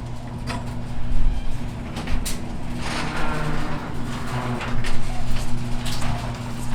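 A steady low hum with scattered clicks and knocks, and a rustling stretch about three seconds in.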